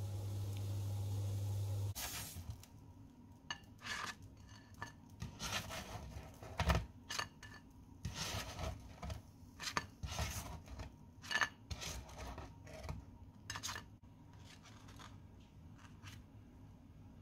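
A black slotted plastic spatula scraping across a nonstick frying pan and knocking on a white plate as fried bread slices are lifted out and set down, in irregular scrapes and clinks. A steady low hum cuts off about two seconds in.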